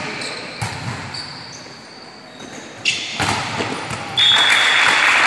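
Indoor volleyball rally in an echoing gym: a few sharp hits of the ball and short high squeaks of shoes on the court floor. Near the end a much louder rush of noise sets in, with a brief high tone on top.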